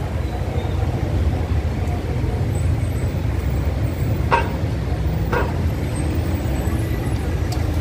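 Street traffic: vehicle engines running in a steady low rumble, with two brief sharp sounds about halfway through.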